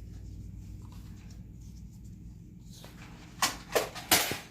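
Plastic Nerf blaster being loaded and primed: three sharp clacks in quick succession near the end, the last the loudest.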